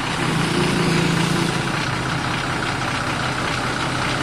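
Sleeper coach's diesel engine idling with a steady hum, a little heavier in the first second and a half.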